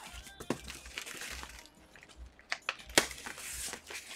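Hands pulling open the flaps of a taped cardboard shipping box: rustling and crinkling of cardboard, paper and tape, with scattered small clicks and one sharp knock about three seconds in.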